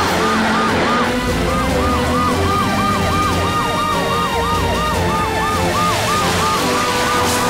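Cartoon emergency-vehicle siren, a fast rising-and-falling wail repeating about two to three times a second, over background music.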